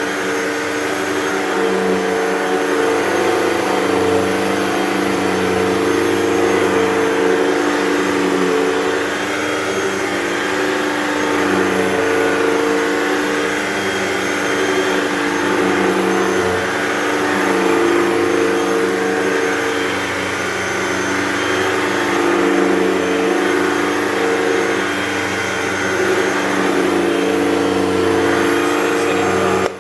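Hoover Total Home Pet upright vacuum cleaner running steadily, its motor hum rising and falling slightly in pitch over a constant airflow hiss.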